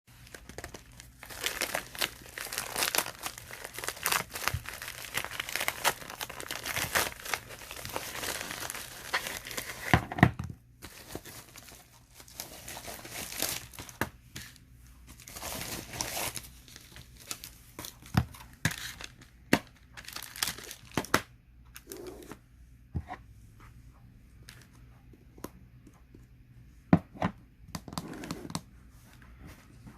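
Close-up crinkling and crackling from something being handled by hand. It is dense for about the first ten seconds, then thins to scattered clicks and short crackles.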